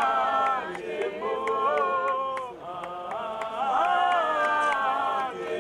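A man singing a chant-like song through a handheld megaphone, in two long phrases of held notes with a short break about halfway through.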